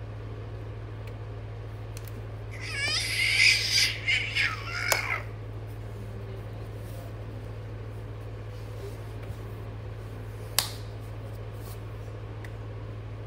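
A baby's high-pitched, wavering squeal lasting about two and a half seconds, starting a few seconds in, over a steady low hum. A single sharp clap or tap comes later.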